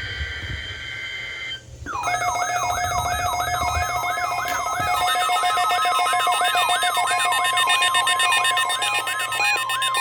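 Weather radio warning alarm sounding for the weekly test: a repeated falling siren sweep about two and a half times a second, starting about two seconds in. A steady tone near 1 kHz, the NOAA Weather Radio 1050 Hz warning alarm tone, grows strong near the end.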